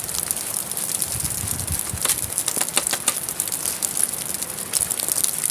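A manure fork scraping over the ground and scooping horse droppings into a plastic bucket, with a cluster of sharp scrapes and knocks about two to three seconds in, over a steady crackling hiss.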